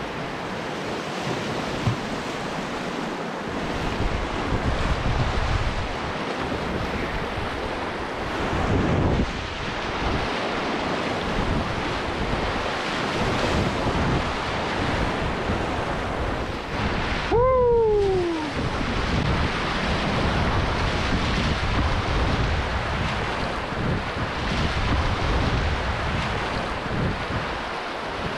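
Rushing whitewater of a rapid in spring flood, churning around a canoe, with wind buffeting the microphone. About two-thirds of the way through, a short pitched sound falls in pitch over about a second.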